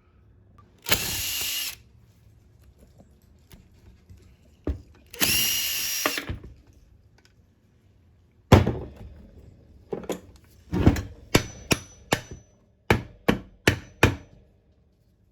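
Two short bursts of a power drill-driver spinning screws out of a two-stroke lawnmower engine, each under a second with a steady whine, one about a second in and one about five seconds in. Then, from about eight seconds in, a string of about ten sharp knocks and clicks as metal parts are handled.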